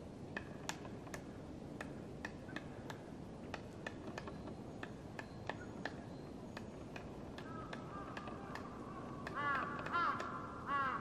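Black woodpecker chiselling into a tree trunk with sharp, irregular knocks, about two a second. From about three-quarters of the way in, a bird calls loudly in quick runs of repeated notes.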